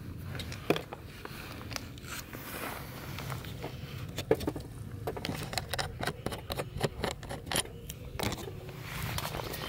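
Handling noise from a camera rig on a plastic pole as it is picked up and moved: irregular clicks, knocks and rubbing, several of them sharp, over a low wind rumble on the microphone.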